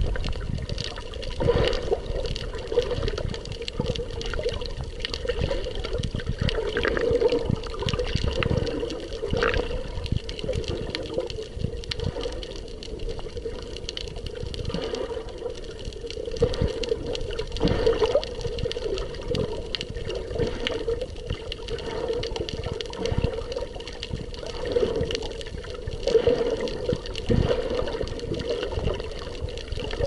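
Water heard by a camera held underwater: a continuous muffled sloshing and bubbling that swells and ebbs unevenly.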